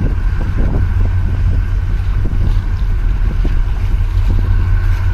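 Wind buffeting the microphone in a heavy, uneven low rumble, with small waves splashing among concrete breakwater blocks. A steady thin tone runs underneath.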